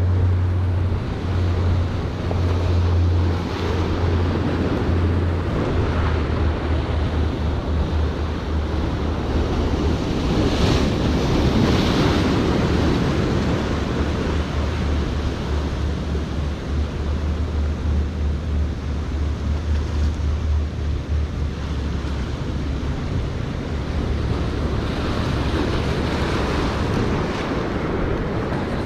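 Ocean surf breaking and washing over jetty rocks, with wind buffeting the microphone and a steady low hum underneath.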